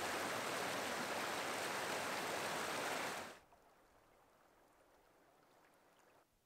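Mountain creek rushing and splashing over rocks, a steady full-range water noise. It cuts off suddenly a little over three seconds in, leaving only a faint water sound.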